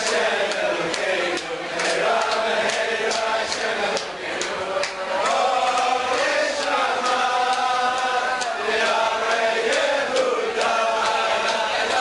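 A group of men singing a melody together in unison, with sharp claps keeping a steady beat of about two a second.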